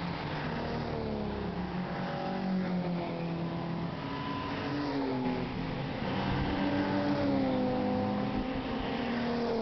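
Several Alfa Romeo cars driving at speed on a race circuit, their engine notes overlapping, each one rising and falling in pitch as the cars accelerate and pass.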